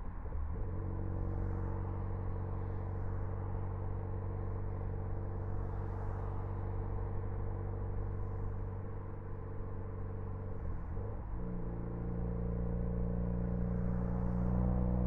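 Ford Focus ST engine running at a steady speed with an even, droning note. The note breaks briefly twice, near the start and about eleven seconds in, and grows a little louder near the end.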